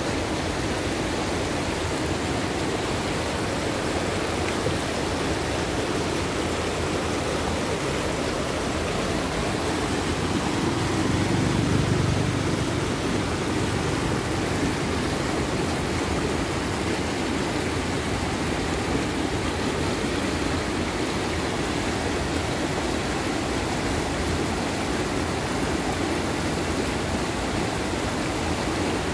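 Rain-swollen, muddy creek in spate rushing steadily over rocks, a continuous rush of water. A low rumble swells for a couple of seconds about eleven seconds in.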